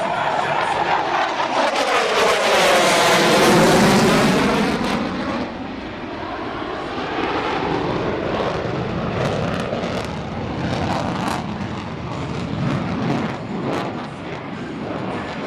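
A jet aircraft passes close by. Its engine noise swells to a peak about three to four seconds in with a sweeping, phasing sound, then carries on as a steadier rush.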